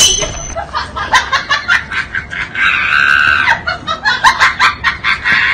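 Comedy sound effects: a sudden sharp hit, then a string of short, high, cackling calls about twice a second, with one longer held squeal in the middle.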